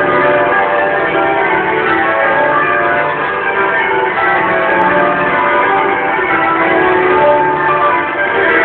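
Church bells of Great St Mary's, Cambridge, change ringing: a ring of tower bells struck one after another in continuous rounds and changes, their tones overlapping. Recorded on a phone, the sound is dull and thin in the highs.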